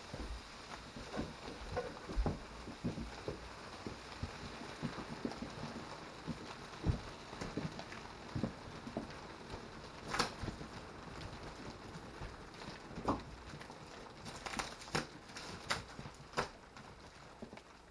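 Irregular crackling and popping from a compressed innerspring mattress expanding inside its plastic wrap, with the wrap crinkling. A few sharper crackles come about ten seconds in and again near the end.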